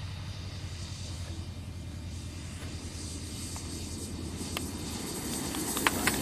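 Radio-controlled model jet landing and rolling out on the runway, its engine running low with a steady hum that grows slightly louder. A few sharp clicks come near the end.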